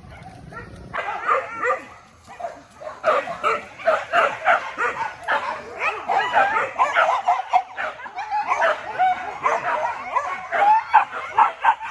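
A pack of hunting dogs barking and yipping over one another in rapid, overlapping calls, starting about a second in and growing denser.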